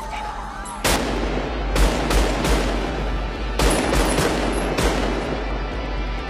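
Film-soundtrack gunfire in a shootout: a single shot about a second in, then quick strings of shots in two clusters with echo smearing between them. The last shot lands a little before five seconds in.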